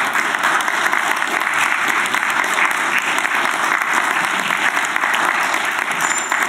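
Audience applauding, many people clapping steadily at the end of a talk.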